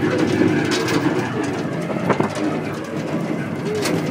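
Boat engine running steadily, with water splashing against the hull and a few sharp clicks. A short rising-and-falling tone comes near the end.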